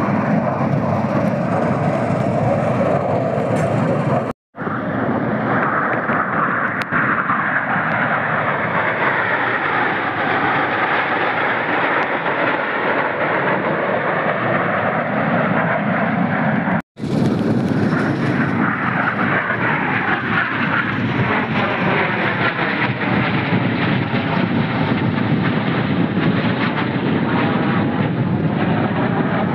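Formation aerobatic jets flying overhead: a continuous loud jet roar with a slowly sweeping, phasing tone as the aircraft pass. The sound drops out briefly twice, about four and seventeen seconds in.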